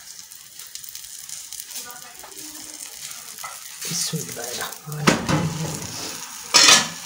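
Radish-stuffed paratha sizzling in ghee on a hot tawa over a gas burner, a steady hiss. About four to five seconds in it is handled and turned over, with a louder rustle and a sharp slap, and a brief loud burst comes near the end as it is pressed down.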